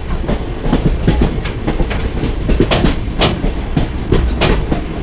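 Passenger express train running along the track, its wheels rumbling and clattering over the rails, with three sharp metallic clicks in the second half.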